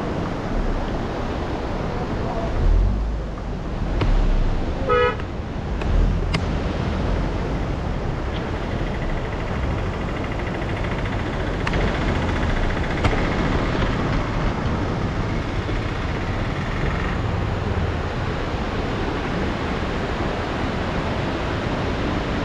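Steady rush of wind and tyre noise from a mountain bike ride, with low wind buffeting on the microphone in the first few seconds. A short pulsed tone sounds about five seconds in, and a steady high whine runs from about twelve to seventeen seconds.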